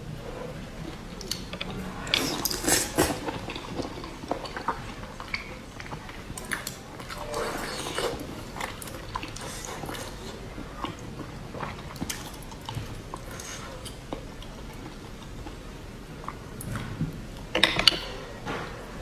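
Close-miked ASMR eating sounds: fingers working braised abalone out of its shells in thick chili sauce, making wet, sticky clicks, along with chewing and biting. Louder clusters come about two seconds in, around eight seconds, and near the end.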